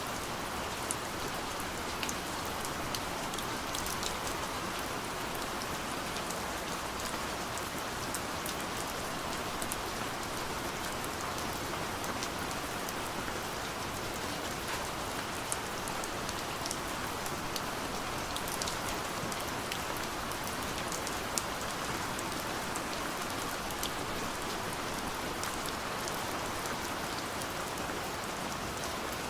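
Soft steady rain falling on a window, an even hiss with scattered light drop ticks.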